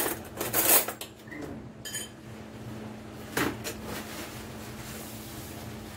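Cutlery clattering as a kitchen drawer of utensils is rummaged for a fork, with a short metallic ringing clink about two seconds in and a single knock a little past halfway, as of the drawer being shut.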